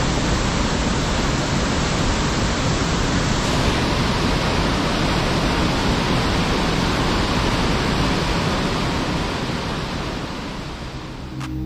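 Steady rush of falling water from a waterfall, fading down a little near the end.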